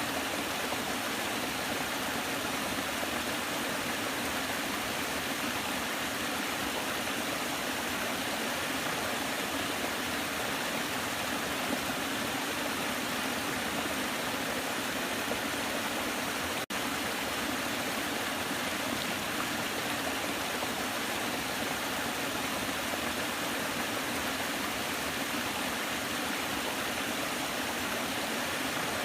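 Waterfall: a steady, even rush of falling water, with a split-second drop-out a little past halfway.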